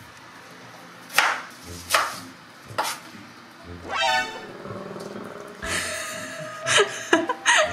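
Comic sound effects added in the edit: three short sharp hits about a second apart, then a brief pitched sting and a held horn-like tone near the end.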